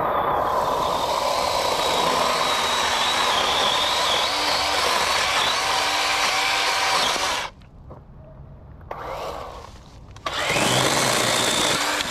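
DeWalt cordless battery chainsaw cutting through storm-downed tree limbs with a steady motor whine. The cut stops suddenly about seven seconds in, and near the end the saw spins back up with a rising whine and bites into the wood again.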